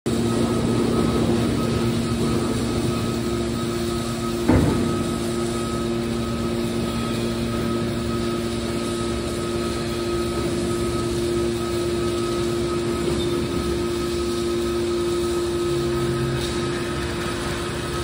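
Hydraulic scrap metal baler running: the pump hums steadily while the cylinders swing the press lid closed. A single clunk sounds about four and a half seconds in.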